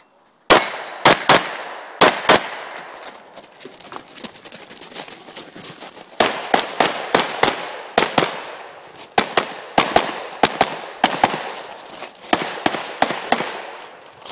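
Pistol shots fired in a practical shooting stage: a first shot about half a second in, two quick pairs, a pause of about three and a half seconds while the shooter moves, then a long run of rapid shots mostly in fast pairs. Each shot cracks sharply and echoes briefly.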